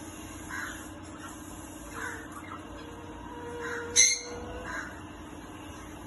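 Small conures giving short chirping calls about once a second, with one loud sharp squawk about four seconds in.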